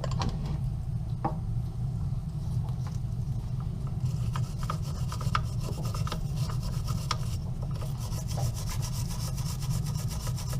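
Wire brush scrubbing rust off a garbage disposal's grinding plate and rusted impellers: rapid scratching strokes that grow denser about four seconds in, over a low steady hum.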